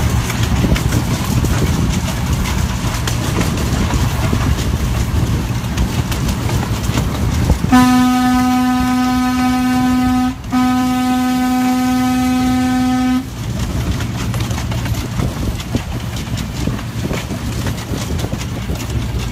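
Miniature train running along its track with a steady rumble, and about eight seconds in its horn sounds two long blasts of a single low tone, back to back with only a brief break between them.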